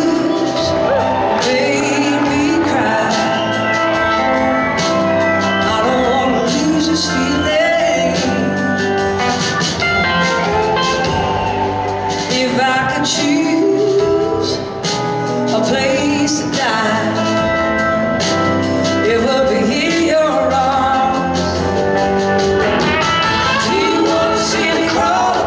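Live band playing a slow blues-rock song: electric guitar lines over drums and keyboards.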